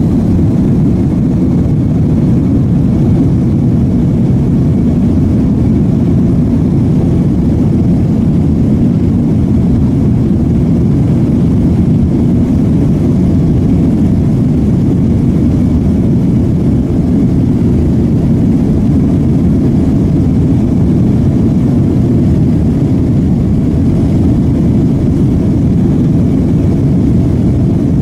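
Jet airliner's engines and wheels on the runway heard from inside the cabin: a steady, deep, unchanging roar.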